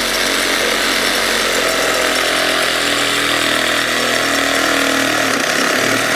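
DeWalt 20V MAX cordless reciprocating saw running steadily at full speed, its blade cutting through the wood of a small tree trunk.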